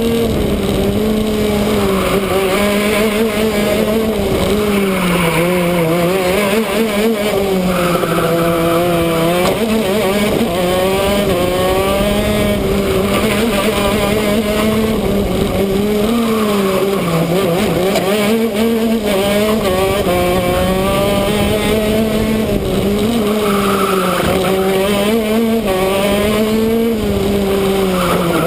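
Shifter kart's two-stroke engine running hard at high revs, its pitch repeatedly climbing and dropping, with a few deeper dips.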